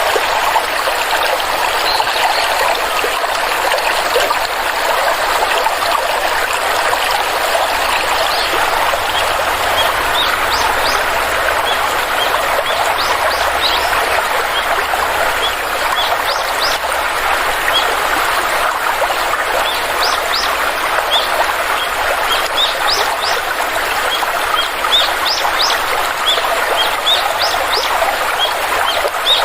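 Steady rush of a flowing stream, with birds' short high chirps repeating from about ten seconds in.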